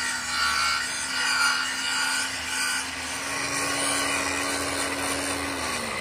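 Large angle grinder running with its disc grinding steel, dressing the weld built up on the broken teeth of a helical gear pinion shaft. It is a steady whine with a rough scraping hiss, and the motor's pitch sags slightly near the end.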